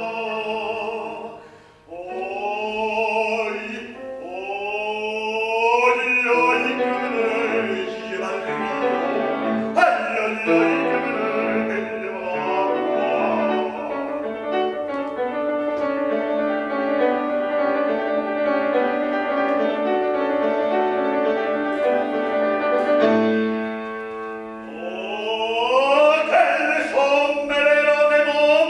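Male classical singer with an operatic voice, singing with grand piano accompaniment. The sound dips briefly about two seconds in, then runs through a long stretch of sustained notes before the voice comes back with rising phrases near the end.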